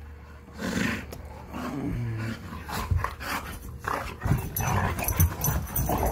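Two dogs, an English bulldog and a black dog, play-fighting: low growls amid irregular scuffling and rough breathing.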